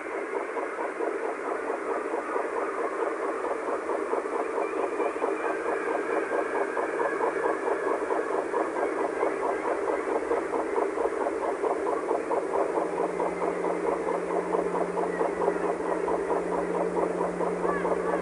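Ambient drone music: a dense, flickering wash of noisy texture that slowly grows louder. A low steady tone comes in about twelve seconds in.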